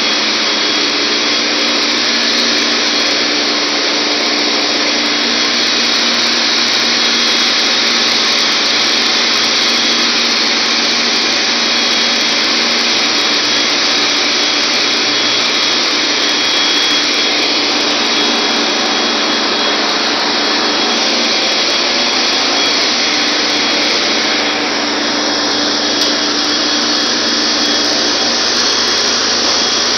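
Loud, steady machinery noise in a ship's engine room, with a constant low hum and a thin high whine running through it.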